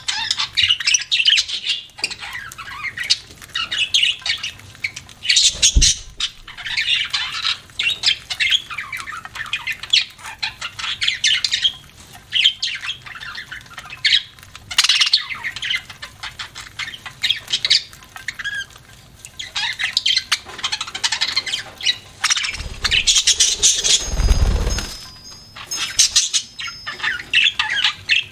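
Budgerigars chattering and chirping without a break, with many small quick clicks through it. A short low thud comes about six seconds in, and a low rumble about three-quarters of the way through.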